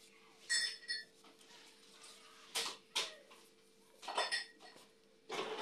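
Kitchen clinks and knocks: a short ringing metallic clink about half a second in and another about four seconds in, with two sharp taps between them.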